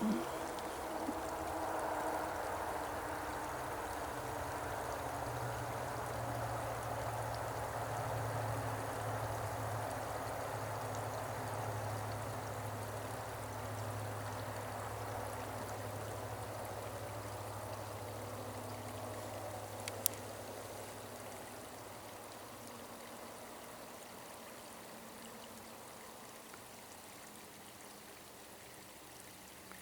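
Water running down a small waterfall into a pond: a steady rush that grows fainter over the last third, with a single sharp click about two-thirds of the way through.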